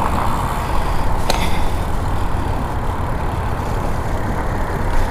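Steady rushing noise of riding a bicycle at speed: wind buffeting an omnidirectional microphone, with tyre and road noise underneath, and a single brief click about a second in.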